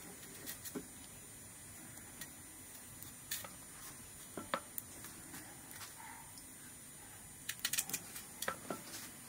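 Scattered light clicks and taps as potatoes are cut with a knife in the hand and the pieces drop onto a steel plate, with a quick run of taps near the end.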